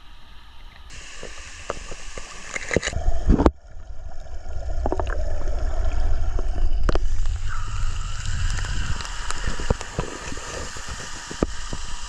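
Running water, a stream or waterfall, under a strong low rumble, with scattered sharp knocks.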